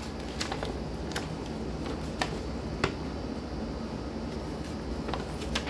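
Paper sheets of a user manual and an invoice being handled, with about five short sharp rustles or clicks, over a steady low hum.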